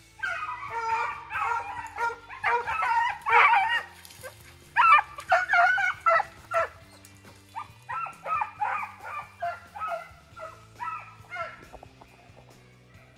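Beagles baying on a snowshoe hare's trail: repeated bursts of drawn-out, overlapping bays that stop about a second before the end, with faint background music underneath.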